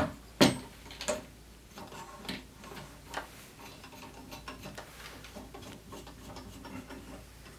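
Stretch knobs on a metal watercolor paper stretcher being turned to pull the clamp bar out and tension the paper: a sharp click about half a second in, then faint, irregular ticks.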